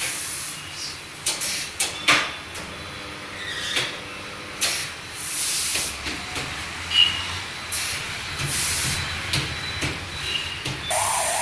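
Tyre-shop work on a motorcycle rear tyre: short bursts of air hiss among sharp clanks and knocks, the loudest knock about seven seconds in.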